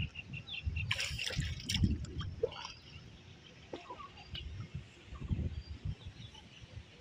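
Water trickling and sloshing, with scattered knocks and sharp clatters about a second and two seconds in, growing quieter and sparser after about three seconds.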